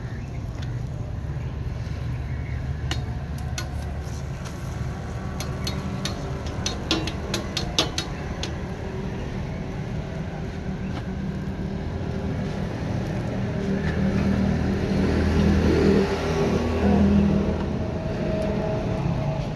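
Steady low rumble of street traffic, with a motor vehicle's engine growing louder and passing about three-quarters of the way through. A quick run of sharp clicks comes a few seconds in.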